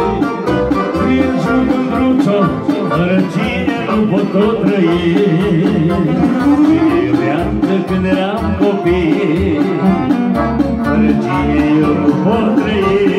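Live band playing an instrumental break in a Romanian love song: a melody line over a steady beat, with no sung words.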